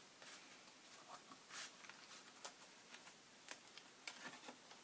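Faint paper handling: cardstock panels of a handmade exploding photo box being folded closed, with soft rustles and a scattering of light taps.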